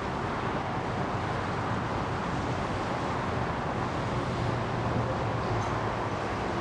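Boeing 747-400 jumbo jet rolling out after touchdown, its four jet engines giving a steady, even roar.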